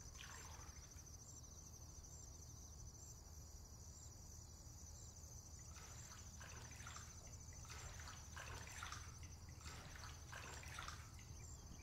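Faint splashing and sloshing of water as a deer wades through a shallow pond, in several short bursts in the second half, over a steady faint high-pitched buzz.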